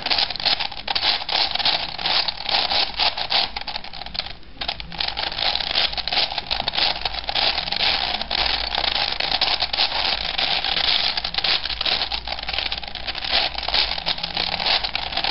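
V-cube 7 puzzle cube's plastic layers clicking and clacking as they are turned rapidly by hand, a dense run of clicks with a short pause about four and a half seconds in.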